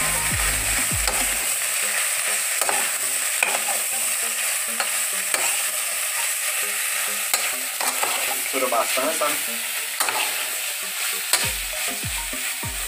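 Beef liver, jiló and onion sizzling in an aluminium pot while a metal spoon stirs them, with short clicks and scrapes of the spoon against the pot. Low knocks come in the first second or so and again near the end.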